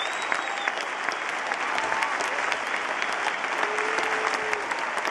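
Large stadium crowd applauding and cheering: dense, steady clapping, with a whistle near the start and a few held shouts.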